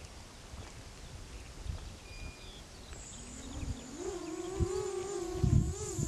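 Buzzing whine of an approaching XTRM210 FPV racing quadcopter's motors and props on a 4S battery, coming in about halfway through, rising in pitch and growing louder. Wind buffets the microphone in low gusts throughout.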